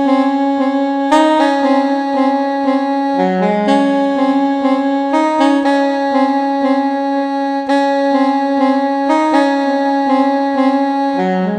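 A saxophone-like instrument tone played from a Nektar LX61+ MIDI keyboard: a slow line of held notes, changing every second or so, with a lower note coming in about three seconds in and again near the end.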